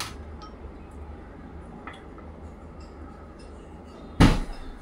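Faint clinks of serving dishes, then one loud knock about four seconds in as a dish is set down on a hard surface.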